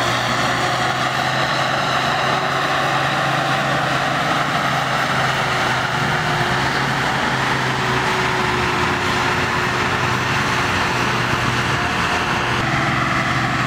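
John Deere tractor's diesel engine running hard and steady under load while it drags a weight-transfer pulling sled.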